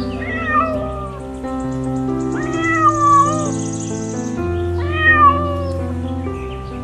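A cat meowing three times, about two seconds apart, each meow a drawn-out call that rises and then falls in pitch, over background music.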